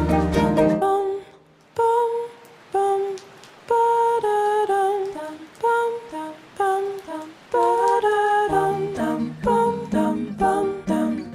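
Background music: a wordless hummed vocal melody in short gliding phrases with pauses between them. A low steady bass note joins about eight seconds in.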